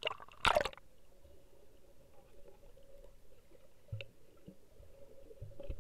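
Pool water splashing loudly for under a second as the camera goes below the surface, then the muffled sound of being underwater in a swimming pool: a steady hum with a few dull knocks, about four seconds in and near the end.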